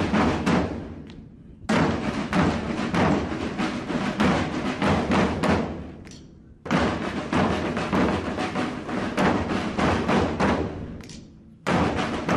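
A group of Portuguese bombos (large double-headed bass drums) and snare drums playing a fast traditional marching rhythm together. The drumming fades out and comes back abruptly three times, about two, seven and twelve seconds in.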